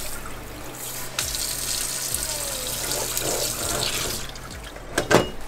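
Water running from a tap into a sink. It starts about a second in and stops about a second before the end, followed by two sharp clicks.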